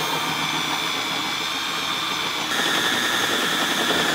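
Cordless drill running steadily, boring through a car's front grille at the light bar's mounting point; its whine shifts slightly and gets a little louder about two-thirds of the way through.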